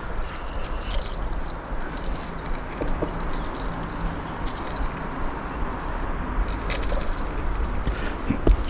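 Crickets trilling in short runs that stop and start, over a low rumble of wind on the microphone, with a couple of faint knocks near the end.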